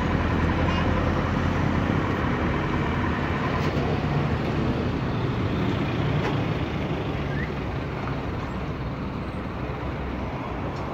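Steady low rumble of a motor vehicle engine running close by, over general road traffic noise, easing off slightly towards the end.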